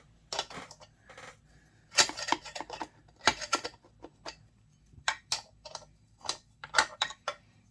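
Irregular sharp metallic clicks and taps, coming in small clusters, from hand tools and metal parts being handled while working a bolt on a chainsaw.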